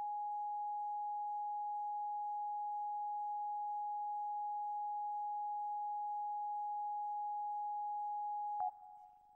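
A single steady electronic tone from a synthesizer, held on one pitch, then cut off by a click near the end, leaving a brief fading ring.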